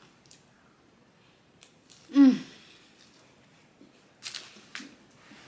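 A person's short vocal sound, falling in pitch, about two seconds in. Two brief hissy noises follow near the end.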